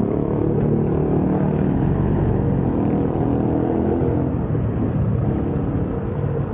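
Small motorcycle engine running steadily under way, with a continuous rush of wind and road noise over it.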